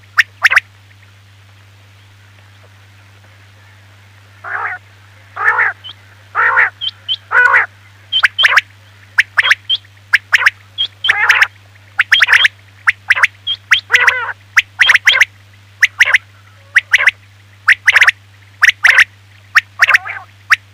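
Quail calling over and over, a recorded calling track of the kind played to lure quail when hunting. After a few sharp calls and a pause of about four seconds, short falling calls come about one a second, mixed with quick high pips. A steady low hum runs underneath.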